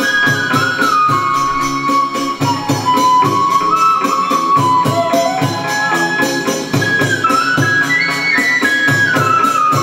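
Instrumental chầu văn ritual music without singing: a sustained high melody that steps and glides up and down, over a quick, steady percussion beat.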